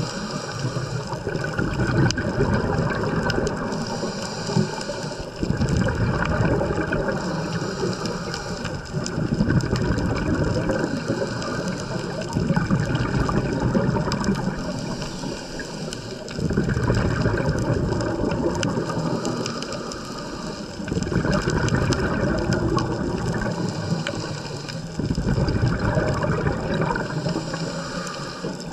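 Scuba diver breathing through a regulator, heard underwater: exhaled air bubbles gurgle out in loud bursts, one breath about every four to five seconds.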